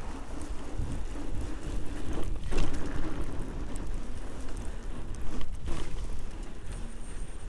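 Wind buffeting the microphone of a handlebar-mounted action camera as a fatbike rides over snow, mixed with the rolling noise of its fat tyres. The noise swells louder twice, a couple of seconds apart.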